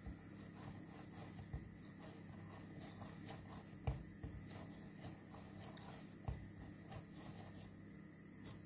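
A ball of soft dough rolled and pressed by hand on a bamboo chopping board: faint rubbing with a few soft knocks against the wood, the loudest about four seconds in, over a low steady hum.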